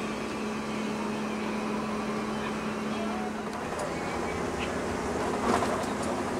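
Interior noise of a Mercedes-Benz OH 1626 coach under way: the diesel engine and road noise form a steady bed, with a low hum that fades out about halfway through.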